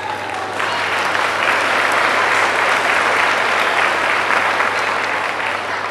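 Audience applauding, starting about half a second in and easing off near the end.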